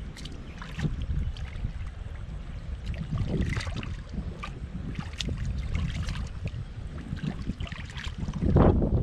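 Wet splashing and squelching in a shallow muddy puddle as hands work through the mud and water around a caught fish, in scattered short splashes with a louder splash near the end. A steady wind rumble on the microphone runs underneath.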